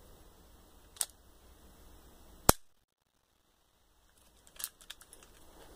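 Toy cap gun fired: a sharp click about a second in, then one loud, sharp crack about two and a half seconds in, followed near the end by a few lighter clicks of the gun being handled.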